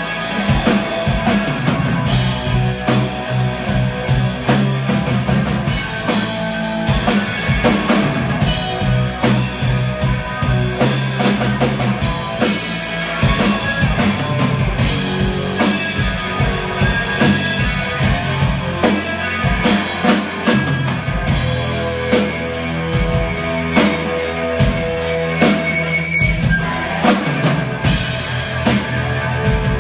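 A live blues trio playing: electric guitar, electric bass and a drum kit together.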